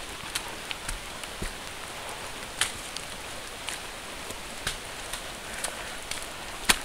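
Walking along a wet, muddy forest trail: a steady hiss with sharp clicks and taps scattered through it, roughly one a second.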